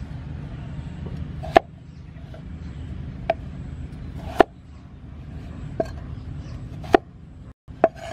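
Cleaver chopping through a peeled potato onto a wooden chopping board: six sharp knocks, one every second or so, over a steady low rumble. The sound cuts out for a moment near the end.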